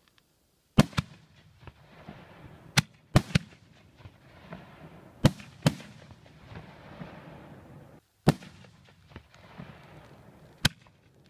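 Aerial firework shells bursting: about nine sharp bangs, several in quick pairs, with a crackling hiss between them.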